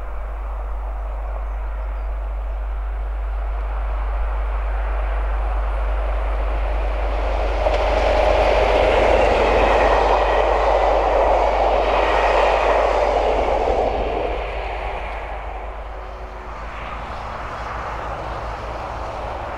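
Two double-headed Class 37 diesel locomotives, with English Electric V12 engines, hauling a train past. The engine sound swells to a loud peak and then fades away. Near the end a quieter steady hum takes over.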